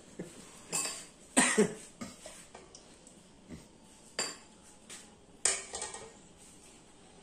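Metal ladle clinking against a metal pot and dishes while serving: a handful of sharp clinks with short ringing, the two loudest close together about a second and a half in.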